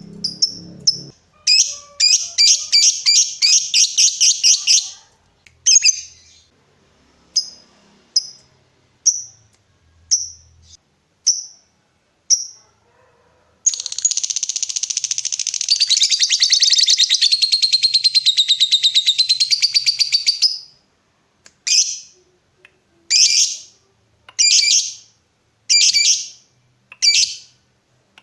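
Lovebird calling with sharp, high single chirps about once a second and a short burst of rapid chatter. About 13 seconds in, it breaks into a long, rapid chattering trill lasting some seven seconds: the 'ngekek panjang' (long chatter) that lovebird keepers prize. Single chirps follow.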